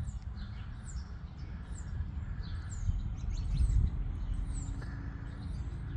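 Small birds chirping: a series of short, high, downward-sliding chirps, about one a second, over a steady low rumble.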